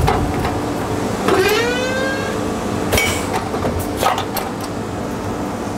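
Shoe sole press and workshop machinery humming steadily, with a few sharp mechanical clicks and a short rising whine about a second and a half in, as a climbing shoe is set on the press pad.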